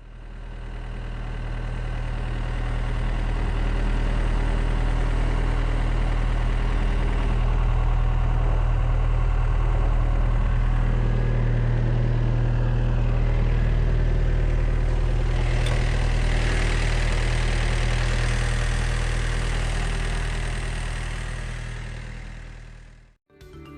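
Engine idling steadily with a low, even hum, fading in at the start and out near the end.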